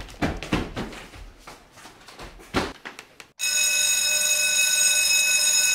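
A few short knocks and bumps, then a little past halfway an electric school bell starts ringing, loud and steady.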